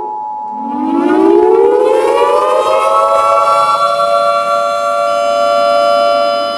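Outdoor tornado warning sirens wailing: one winds up from a low pitch over about two and a half seconds and then holds a steady tone, while a higher steady tone from another siren cuts off about four seconds in.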